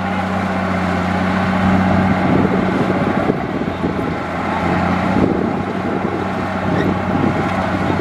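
Diesel engine of heavy earthmoving machinery running at a steady speed, a continuous low drone.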